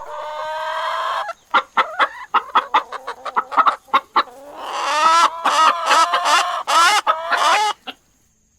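Chicken clucking and cackling. A drawn-out call is followed by a quick run of short clucks, then longer wavering calls that stop about eight seconds in.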